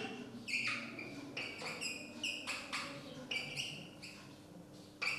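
Dry-erase marker squeaking on a whiteboard while letters are written: a quick series of short squeaks, one per pen stroke, some sliding up or down in pitch.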